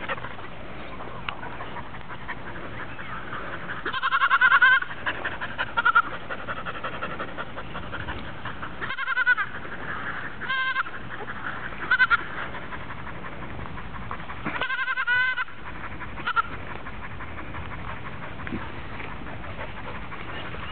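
Goat bleating: several wavering calls spread through, each about half a second to a second long, the loudest about four seconds in.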